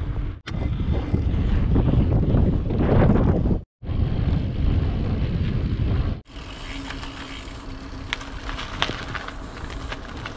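Wind rumbling on the microphone of a mountain bike being ridden, in short clips that cut off abruptly. The last clip is quieter, with scattered sharp clicks.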